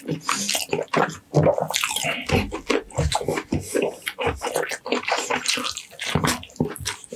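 Close-miked eating sounds: wet chewing and lip-smacking as roast meat and rice are eaten by hand. It comes as a rapid, irregular stream of moist clicks and crackles.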